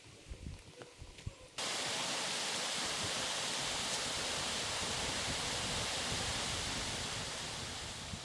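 A few faint knocks, then about a second and a half in a loud, steady rushing hiss starts abruptly and holds, fading slightly near the end.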